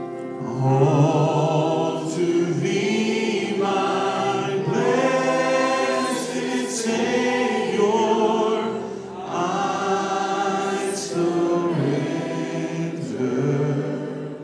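A praise band singing together in several men's and women's voices into microphones, with acoustic and electric guitars, in long sung phrases with short breaks between them.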